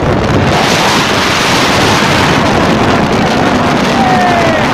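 Strong wind rushing and buffeting over the microphone of a camera riding on a moving 70 cc motorcycle, with the small motorcycle engine running underneath.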